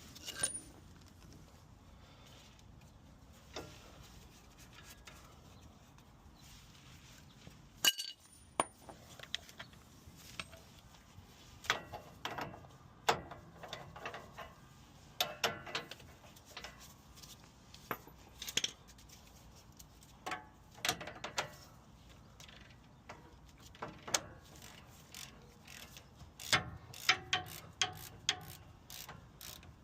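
Scattered metallic clinks and clicks of hand tools and steel steering parts being handled while a castle nut is fitted onto a tie rod end, with a quicker run of clicks near the end.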